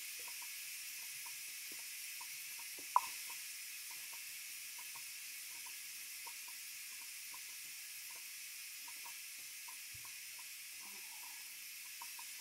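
Electric pressure cooker letting off steam through its release valve, a steady hiss while the pressure is still releasing after cooking. One sharp click about three seconds in.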